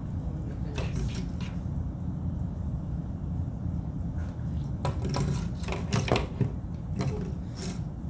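A fidget toy clicking and rattling as a Bengal kitten bats at it: irregular short clicks, briefly about a second in and in a quick cluster in the second half, over a steady low rumble.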